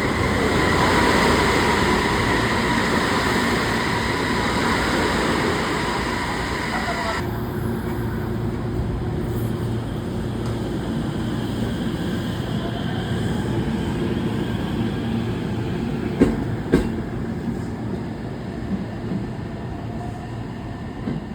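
Electric commuter train moving along a station platform: a steady rumble with high whining tones that drop away about seven seconds in, leaving a quieter rumble, then two sharp clacks near the end.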